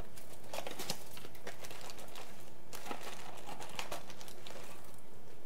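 Crinkling and scattered light clicks as a package of yellow rock sugar is handled and pieces are taken out.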